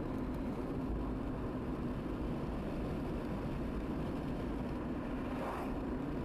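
Steady engine and road noise of a car heard from inside its cabin while driving. A brief rushing swell comes near the end as an oncoming car passes.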